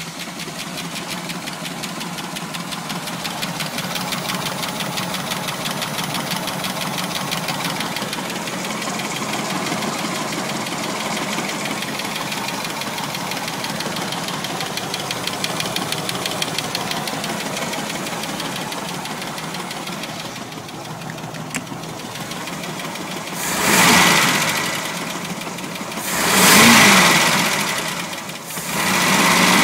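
1989 454 Magnum marine big-block V8 with rectangular-port heads idling with a fast, steady ticking whose cause the owner cannot identify. Near the end the engine is revved up three times.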